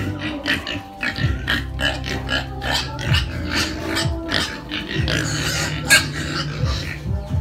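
Young pigs grunting and oinking at close range, with music playing underneath.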